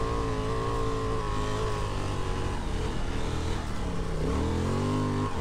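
Honda Transalp XL750's parallel-twin engine running under load on a sand track: the note holds steady, wavers and breaks up through the middle, then climbs in pitch near the end as the revs rise.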